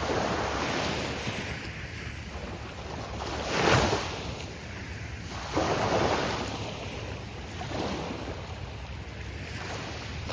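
Gulf of Mexico surf: waves breaking and washing ashore in repeated swells of rushing noise. The loudest break comes a little under four seconds in, another about two seconds later, and a smaller one near the eighth second.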